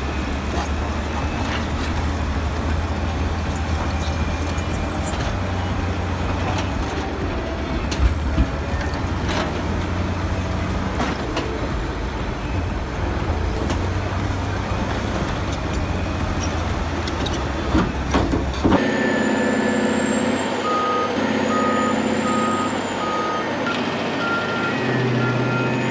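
Caterpillar D8R bulldozer's diesel engine running under load, with scattered clanks and knocks. About two-thirds of the way through the sound cuts to another heavy machine running, and a reversing alarm beeps steadily over it.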